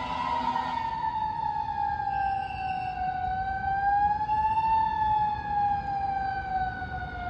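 Fire apparatus siren in a slow wail: a single tone falls, rises briefly about two thirds of the way through, then falls away again.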